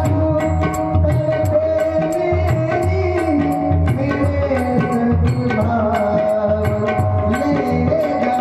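Devotional bhajan music without words: tabla keeps a steady rhythm, its bass drum strokes gliding in pitch, under a sustained melody line, with regular high ticks marking the beat.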